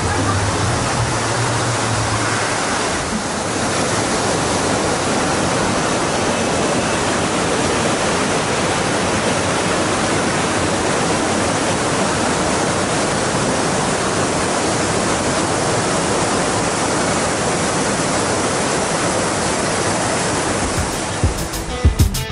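Steady rush of a waterfall, an even hiss of falling water that does not change. Strummed guitar music starts near the end.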